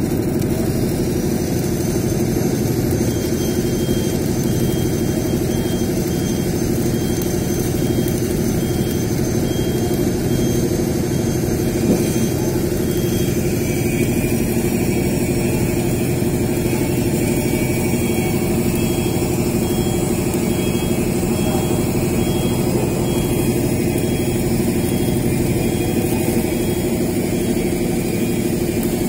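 Electric arc welding on a large steel pipe: a steady buzzing arc over a constant hum, with no break in level.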